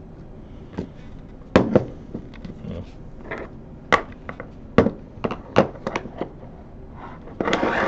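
Irregular sharp clicks and knocks, a dozen or so, as microscope parts and tools are handled and set down on a work surface. There is a short scraping rustle near the end.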